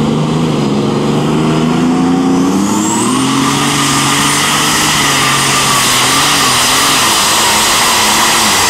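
Minneapolis-Moline G-1000 pulling tractor's engine running hard at full load as it drags the weight sled. A high whine rises about three seconds in, then holds steady.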